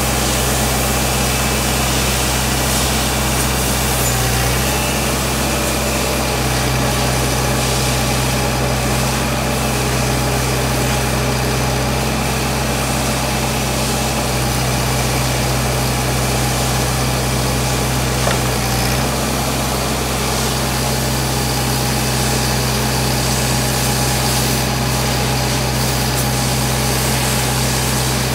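Engine of a 2007 Gehl 1648 asphalt paver running steadily.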